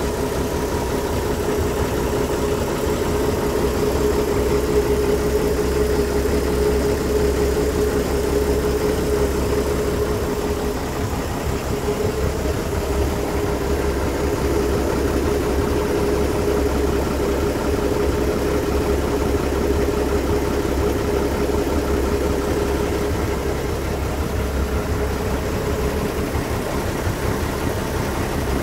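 Volvo Penta AD41 four-cylinder turbo marine diesel idling steadily about a minute after a cold start, with a steady humming whine over the engine's running note.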